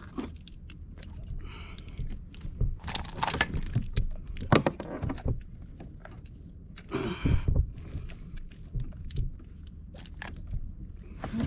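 Irregular clicks, knocks and light rattling, with two short rushes of noise, one about three seconds in and one about seven seconds in.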